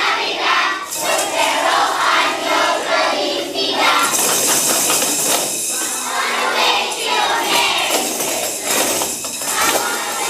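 Tambourines shaking and jingling over music, with children's voices singing. The jingling grows brighter about four seconds in.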